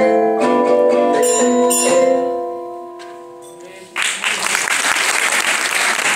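Barred mallet instruments (xylophones and metallophones) strike a final chord that rings on and fades away over about two seconds. About four seconds in, applause breaks out and carries on.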